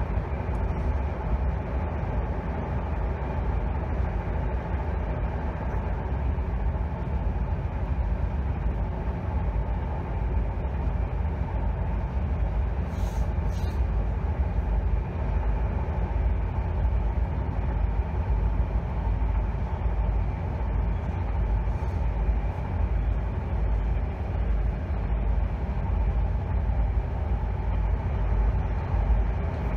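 Passenger train running: a steady low rumble, with two brief faint ticks about 13 seconds in.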